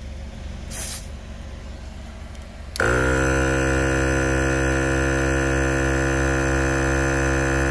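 A short hiss of air about a second in, then about three seconds in a 12-volt portable car tyre air compressor switches on. It settles within a moment into a loud, steady mechanical hum.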